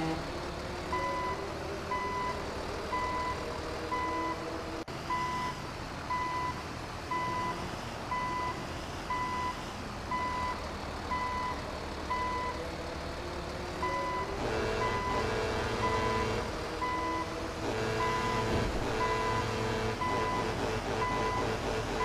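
Vehicle reversing beeper sounding evenly, about one short beep a second, over a low engine rumble. About two-thirds of the way in, a louder steady drone joins it, breaks off briefly, then resumes.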